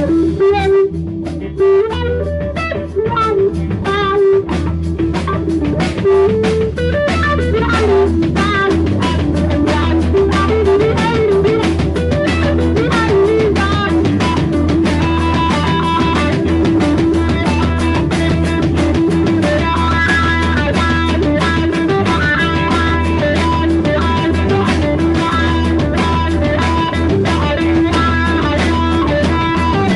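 A live band playing: guitar-led music with bass and drums, the guitar line moving quickly at first and the band settling into a steady, denser groove.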